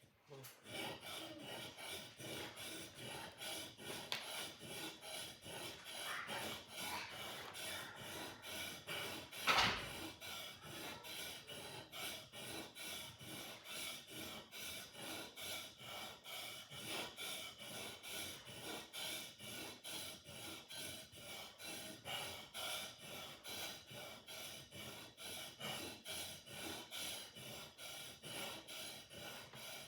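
Sword blade being sharpened with rhythmic back-and-forth scraping strokes, about three a second, with one louder scrape about ten seconds in.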